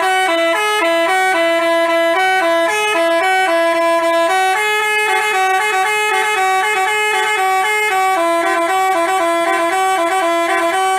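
Basuri 'telolet' musical bus horn playing a tune: a quick run of steady, horn-like notes stepping up and down, loud and without a break.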